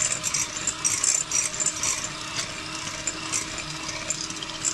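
Electric hand mixer running steadily with a constant motor hum, its beaters whisking eggs and sugar and rattling against a glass bowl.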